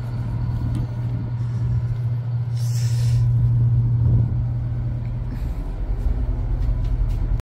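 A ferry's engine droning steadily, with a short hiss about three seconds in.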